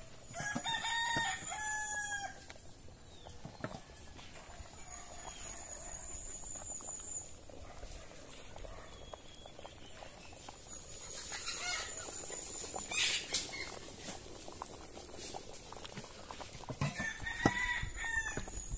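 A rooster crowing twice, once about a second in and again near the end, each crow a little under two seconds long.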